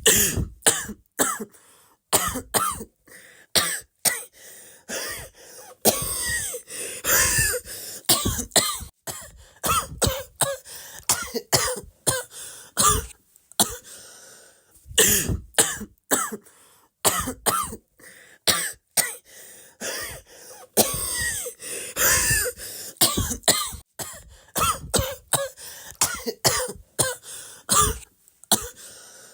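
A person coughing over and over, in quick runs of short coughs with brief pauses between fits; some coughs carry a voiced pitch that bends.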